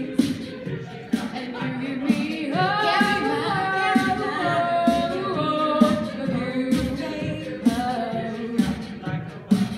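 Mixed a cappella choir singing a pop song in several-part harmony, with a vocal-percussion beat striking about once a second under the voices.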